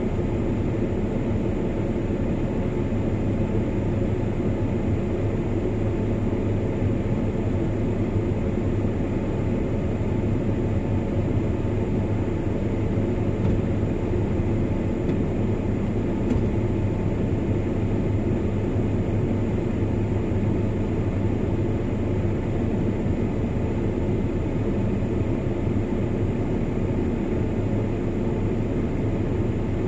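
Truck driving at a steady speed: a continuous engine drone with road noise, unchanging throughout.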